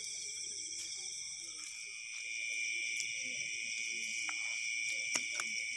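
Night insect chorus: a steady, high-pitched drone of several overlapping pitches, with a few faint clicks and rustles of handling close by.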